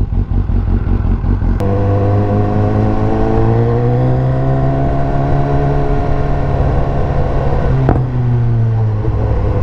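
2019 BMW S1000R's inline-four with an Akrapovic exhaust, pulling away under acceleration. After a click about a second and a half in, the engine pitch climbs, holds steady for a few seconds, then drops away near the end after another click.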